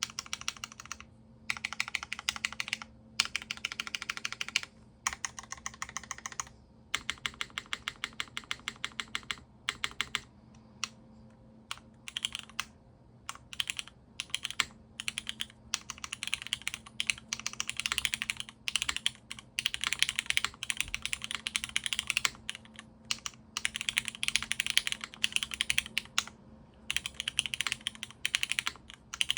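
Typing on a custom mechanical keyboard with a full aluminium plate, O-ring mount and diamond-paste-polished Cherry MX Black linear switches under GMK keycaps: fast runs of keystrokes broken by short pauses every second or two.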